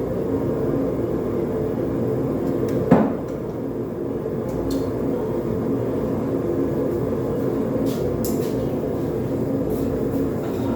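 Propane forge burner running with a steady roar, with one loud knock about three seconds in and a few faint clicks later.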